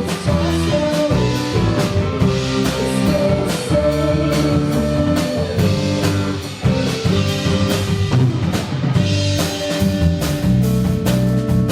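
Live rock band playing an instrumental passage: drum kit keeping a steady beat under guitar.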